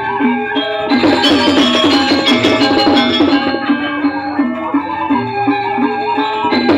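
Balinese gamelan music: bronze metallophones ringing with drums, becoming louder and brighter about a second in.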